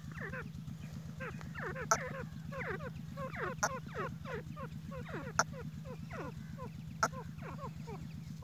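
Grey francolins calling: a fast, continuous run of short downward-slurred chirps. A sharp click comes about every second and a half, and a steady low engine hum runs underneath.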